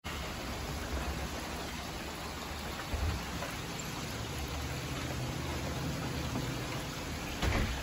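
Steady rain falling, with a short low thud about three seconds in and another, louder one near the end.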